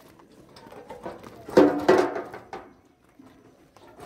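A short burst of a person's voice about a second and a half in, with faint handling clatter before it and a quieter stretch after.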